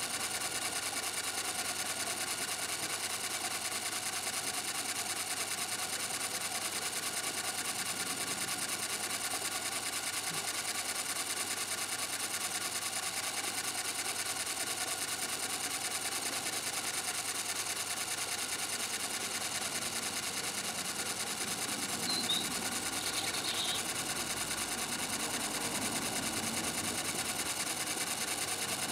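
Model Allchin crane engine running steadily as it winds out its hook line, a constant even whine.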